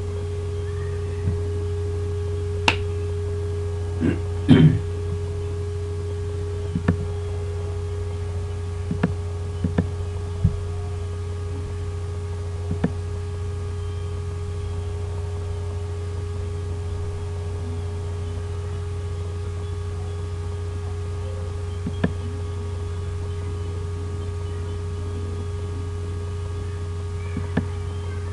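Steady electrical hum with a fainter higher steady tone, picked up by a computer's recording microphone. Scattered short clicks and knocks, the loudest cluster about four seconds in.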